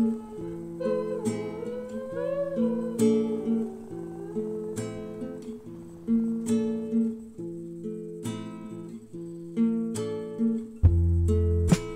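Background music: acoustic guitar strumming chords at an even pace, with a heavy bass part coming in near the end.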